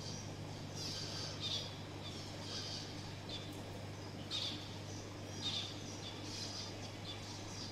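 Zebra finches calling, short high chirps about once a second, over a steady low hum.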